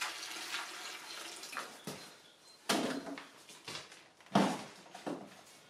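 Water pouring from a watering can into a plastic bucket of dry ready-mixed screed for about two seconds, then stopping. Two sharp knocks follow, the second one the loudest.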